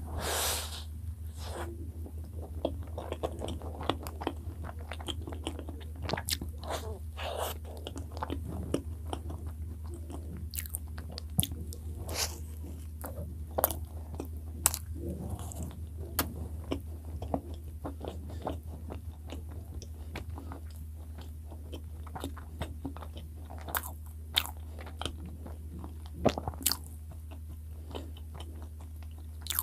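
Close-miked eating of soft cream-filled bread: a bite just after the start, then steady chewing with many short, sharp mouth clicks and smacks. A steady low hum runs underneath.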